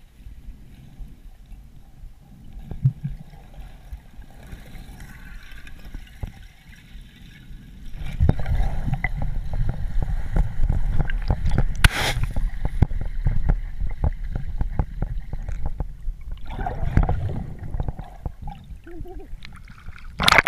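Muffled underwater water noise picked up through a submerged action camera: a low rumble and gurgle of moving water that grows louder about eight seconds in, full of small knocks and clicks, with a brief splash near the end as the camera breaks the surface.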